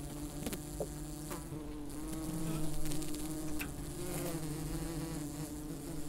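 A honeybee colony buzzing at the hive: many bees together making a steady hum that wavers slightly in pitch, with a few faint clicks.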